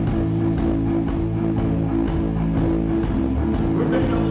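A live rock band playing: electric guitars and bass guitar over drums, with held, ringing guitar chords.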